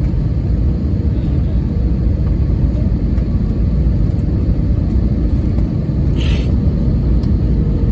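Steady low rumble of an Airbus A320neo airliner heard inside the passenger cabin, with a short hiss about six seconds in.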